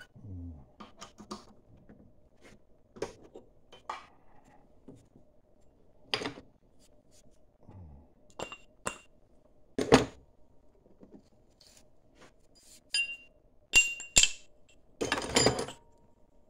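Metal parts and tools being handled and set down: scattered clinks and knocks, a few with a short metallic ring, the loudest about ten seconds in and near the end.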